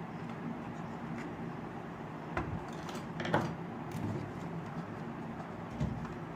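A few light plastic clicks and knocks as a six-wheeled toy RC monster truck is handled and set down on a wooden board, over a steady low hum.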